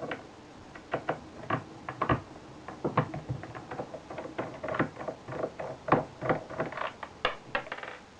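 Irregular clicks, taps and knocks of an old video camera being taken apart by hand: plastic and metal parts and tools being handled.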